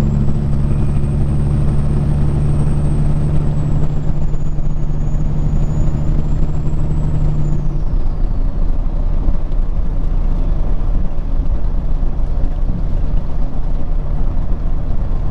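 Peterbilt 379 semi truck cruising under load: a steady diesel drone with a faint high whistle over it, mixed with tyre and road noise. About eight seconds in, the engine drone and whistle fade, leaving mostly road and tyre noise.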